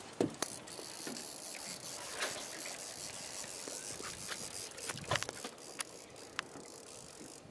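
Fishing reel being cranked to bring in a hooked fish on a hard-bent rod, its gears whirring with scattered sharp clicks.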